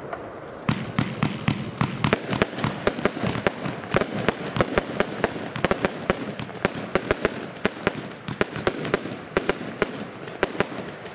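Lesli Big Blue Box compound firework cake firing a rapid string of shots, several sharp bangs a second. The shots start about a second in and thin out near the end.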